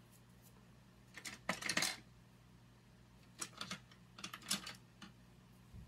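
Small hard objects clicking and clattering in three short bursts, with a couple of lighter clicks near the end: makeup cases and tools being handled and set down on a table.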